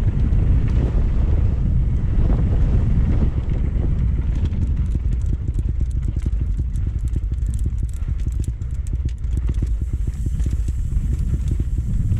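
Mountain bike descending a rough trail at speed: wind buffeting the microphone with a heavy low rumble, and a rapid clatter of the bike rattling over rocks and roots that gets busier about four seconds in.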